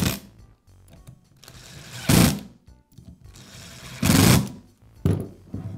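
Electric screwdriver whirring in short bursts as it drives screws into a plastic tool housing. There are three main bursts about two seconds apart, then two shorter ones near the end.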